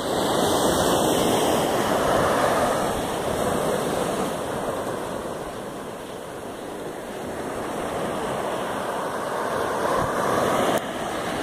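Ocean surf breaking and washing up a sandy beach, a steady rush that swells, eases off midway, builds again, then drops suddenly near the end.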